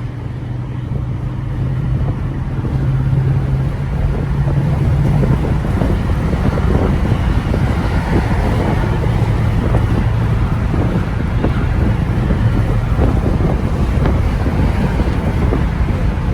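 Car driving at speed: a steady low engine drone under road and wind rush, growing louder over the first few seconds as it gathers speed.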